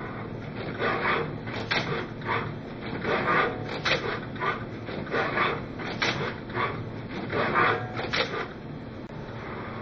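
Robotic bell-pepper gripper working, its finger drives whirring in repeated short bursts, about one every half second to second, with a few sharp clicks, as the finger pairs close on and release the peppers.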